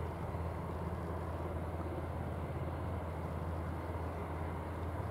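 Helicopter warming up its engines on the ground, a steady low drone.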